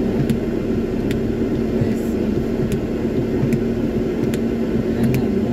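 Steady low hum inside a stopped car's cabin in the rain, with faint sharp ticks roughly every second.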